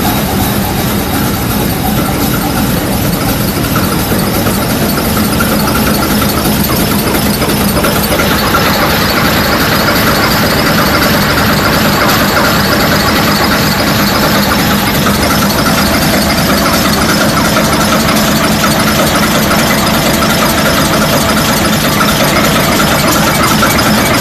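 Huge nine-cylinder diesel engine running, loud and steady; its sound gets harsher and higher-pitched about eight seconds in.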